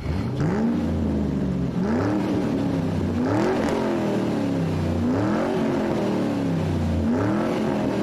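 Car engine revving over and over, about five times, each rev climbing quickly in pitch and sliding back down over a steady low drone.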